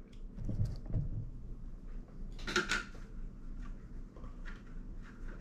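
Light handling sounds of a phone holder being fitted to the top of a ring light: a few soft knocks in the first second, a short sharp scrape or click about halfway through, and scattered small clicks of plastic and metal parts.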